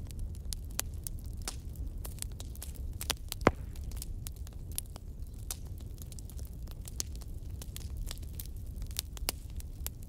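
Wood fire crackling in a fireplace: a steady run of small sharp pops over a low rumble, with one louder pop about three and a half seconds in.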